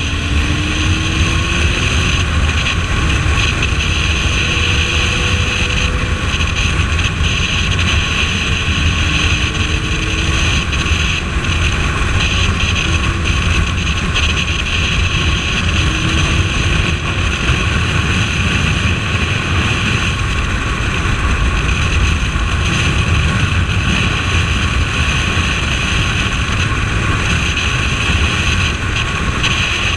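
Suzuki Bandit 1250S inline-four motorcycle engine running at road speed under heavy, steady wind rush on the microphone. The engine note rises slowly a few times as the bike accelerates.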